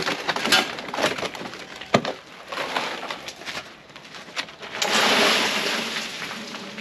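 A run of light knocks and slapping footsteps on gravel, then, about five seconds in, a long rush of sand pouring out of a tipped wheelbarrow, the loudest sound, lasting under two seconds.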